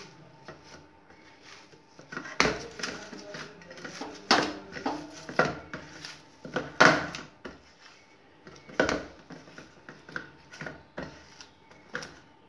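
Hand kneading a mash of grated boiled potato and soaked semolina in a steel plate: irregular soft squishing, with sharper knocks of fingers against the steel, a handful of louder ones a couple of seconds apart.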